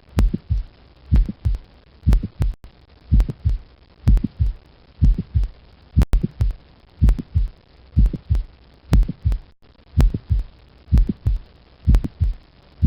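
Heart sounds heard through a stethoscope: a steady lub-dub of paired low thumps about once a second, with a heart murmur.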